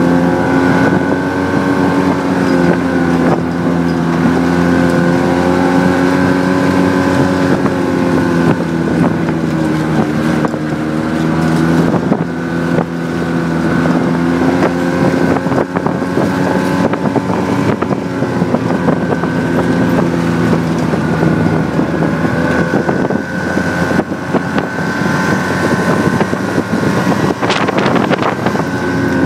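A Ski-Doo snowmobile engine runs steadily while riding, its pitch wavering a little. The engine note eases for a few seconds past the middle and then comes back. Wind buffets the microphone throughout.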